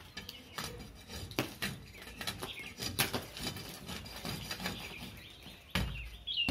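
A long metal rod scraping and knocking at the old plaster of a concrete ceiling, chipping it off. The scrapes and taps come at irregular intervals, roughly one every half second.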